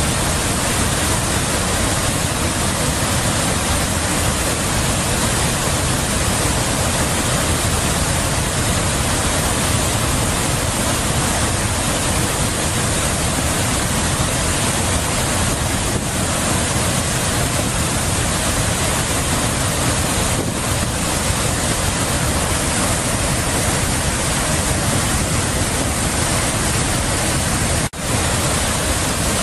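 Steady rushing of a flood-swollen river pouring over a waterfall, a dense, even noise from the high heavy water after a night of heavy rain. It drops out for an instant near the end.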